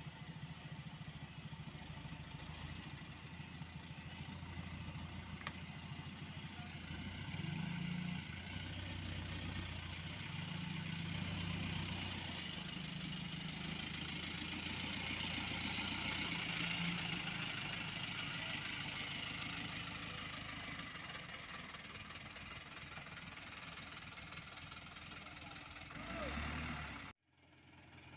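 Diesel engines of road-paving heavy machinery running steadily, growing louder in the middle and easing off again. The sound cuts out abruptly for a moment near the end.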